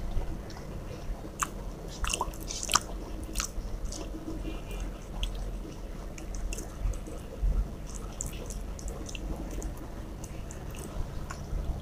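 Eating with the fingers: rice and fish curry squished and mixed by hand on a steel plate, and chewing, heard as scattered small wet clicks over a low steady hum.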